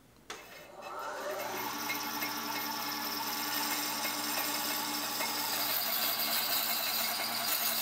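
Bandsaw spinning up, its hum rising in pitch over the first second or so, then running steadily as the blade cuts through the end of a turned wooden handle.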